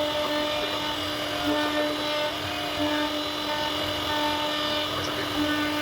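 CNC router spindle whining steadily as it carves wood, with a cutting hiss; the tone swells and eases every second or so as the load on the bit changes.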